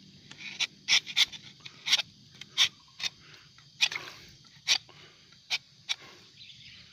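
Rubber-tapping knife scraping bark off a fallen rubber tree's trunk while cutting a tapping groove: about a dozen short, sharp scrapes, irregularly spaced, stopping about six seconds in.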